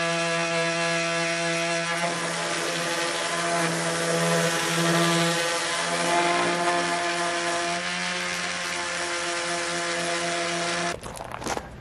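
Electric orbital sander running steadily against a wooden door panel, a steady motor hum over the hiss of sanding. It cuts off suddenly near the end.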